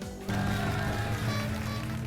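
Background music that starts about a quarter of a second in, with steady held low tones.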